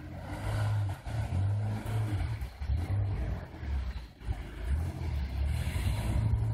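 Car engine revving up and down repeatedly under changing throttle while the car drifts on snow.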